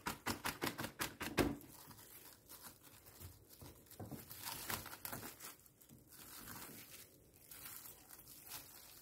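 Plastic cling film over a bowl crinkling and rustling as it is handled and peeled off by hand. A quick run of rustling strokes comes in the first second and a half, followed by softer, scattered crinkles.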